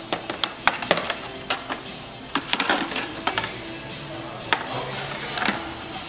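Background music playing steadily, with irregular sharp clicks and knocks of plastic scooter fairing panels and wiring being handled.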